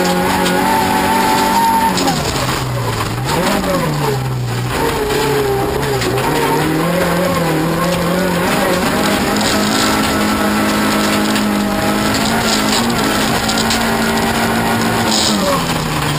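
Toyota Corolla rallycross car's engine heard from inside the cabin, racing on a dirt track. It holds steady revs, drops away about two seconds in with a short blip, then pulls up again and holds higher revs before falling off near the end.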